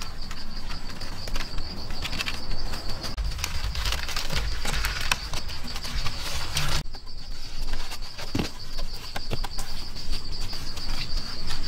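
Wooden poles and vine lashings being handled on a pole frame: scattered knocks, clicks and rustling, over a steady high-pitched insect drone.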